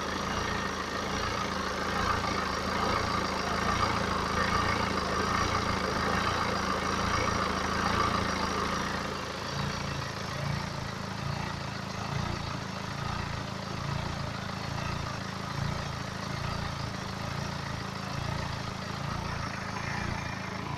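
BMW N47 2.0-litre four-cylinder diesel engine of a 318d idling warm, after about ten minutes of driving, recorded to check for timing chain noise.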